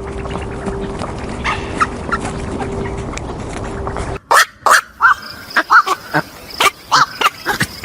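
Animal calls in two parts split by an abrupt cut. First come scattered short calls over a steady hum, then a rapid run of short, loud, pitched calls several times a second.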